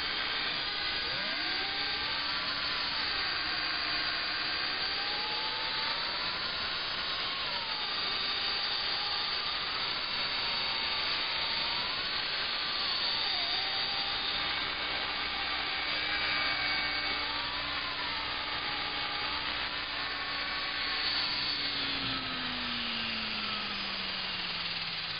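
Electric RC helicopter (Align T-Rex 500) flying: a steady motor whine and rotor hiss, with a higher tone wavering up and down as it manoeuvres. Near the end, after it sets down, the motor spools down with a steadily falling pitch.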